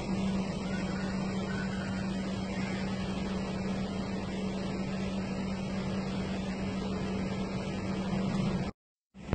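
A steady mechanical hum: a constant low tone over a wash of noise, cutting out completely for about half a second near the end.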